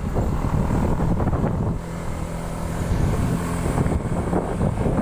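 Wind buffeting the microphone over a running vehicle engine; from about two seconds in a steady engine note comes through the rumble.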